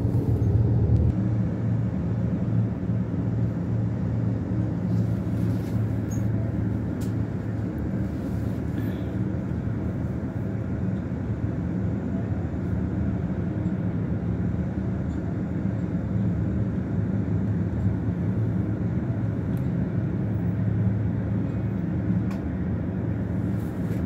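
Bus engine running with a steady low hum, heard from inside the passenger cabin. The bus is moving at first, then stands idling at a stop.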